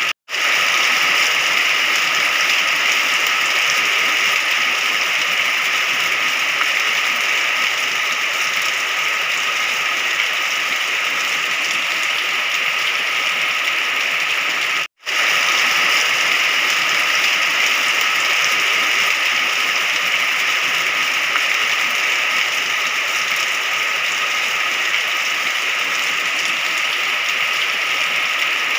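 Rain falling steadily, an even hiss without thunder. It cuts out for a split second twice, near the start and about halfway through.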